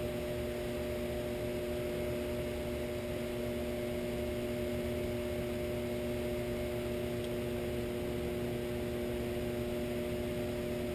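Shopsmith 10ER's Leeson 3/4 HP DC motor and belt drive running steadily at low speed, about 200 RPM in medium range, giving a constant hum.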